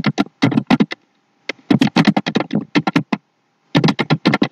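Computer keyboard keys clicking in quick runs of keystrokes as a sentence is typed, with short pauses about a second in and again near the three-second mark.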